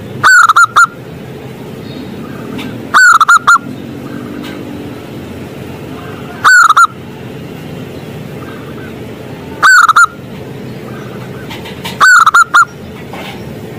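Zebra dove (perkutut) cooing: five loud phrases, each a quick run of three or four clipped coos, repeated about every three seconds.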